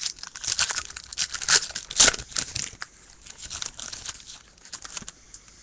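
The foil wrapper of a 2010 Topps baseball card pack being torn open and crinkled: a dense run of crackles, loudest about two seconds in, that thins out over the last couple of seconds.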